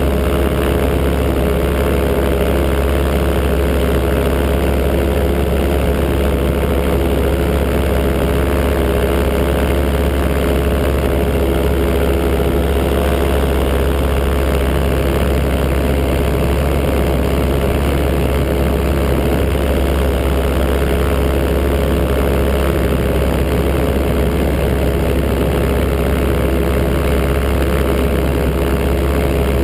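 Paramotor engine and propeller running steadily in flight, heard close up, holding one even pitch throughout.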